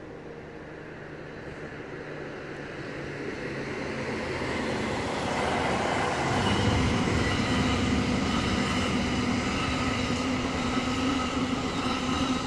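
Exo commuter train coming into the station and passing close by. It grows steadily louder over the first half, then holds loud, with a dense rumble of wheels on rail and several steady whining tones.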